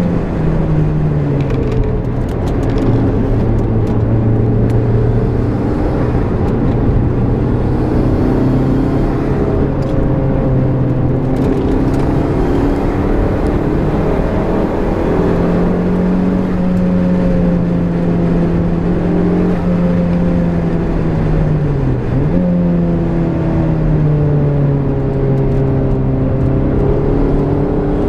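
Turbocharged Toyota MR-S's 1.8-litre four-cylinder engine heard from inside the cabin under hard track driving, over wind and tyre noise. The engine note holds, climbs and sags with throttle and speed, with one quick drop and recovery in pitch about two-thirds of the way through.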